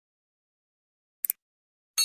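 A short double mouse-click sound effect about a second and a quarter in, as the on-screen cursor clicks the notification bell. A bright bell chime starts right at the end.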